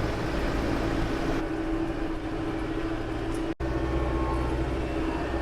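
Compact tractor's diesel engine running steadily as the tractor drives over soft ground; the sound drops out for an instant about three and a half seconds in.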